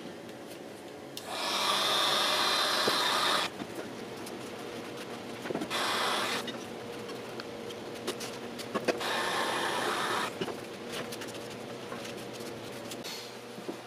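Heat gun blowing in three bursts: about two seconds, then a short one, then about a second and a half. It is warming a freshly squeegeed vinyl decal to flatten it and work out small bubbles.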